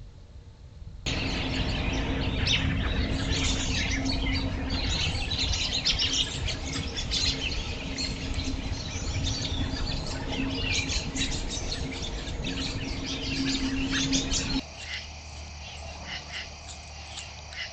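Many birds chirping and calling together, dense and overlapping, over a steady low hum and rumble. About fourteen seconds in it cuts off suddenly to a quieter steady high trilling chorus.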